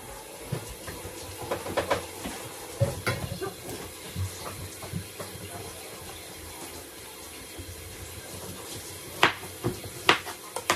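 Steady running water, as from a kitchen tap into a sink, with a few sharp knocks and clatters of handling. Two of the knocks, near the end, are louder.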